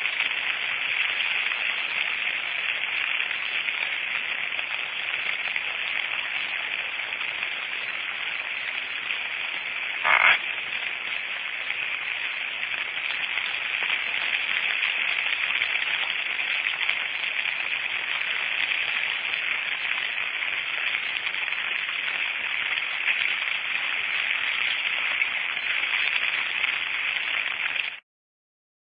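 A dense, steady chorus of frogs calling, with one brief louder crackle about ten seconds in; it cuts off suddenly near the end.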